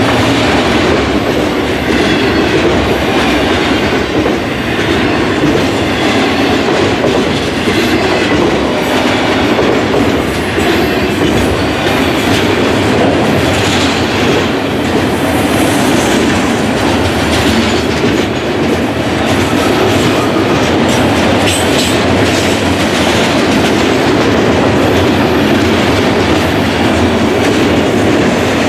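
Autorack freight train rolling past, its wheels clattering steadily on the rails.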